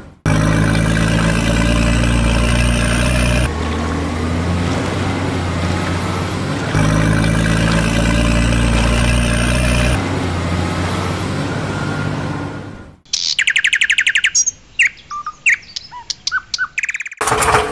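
Truck engine sound effect running steadily, its tone switching back and forth every three seconds or so like a repeating loop. About 13 seconds in it cuts off and birds chirp, a fast trill and then scattered chirps, before the engine sound starts again near the end.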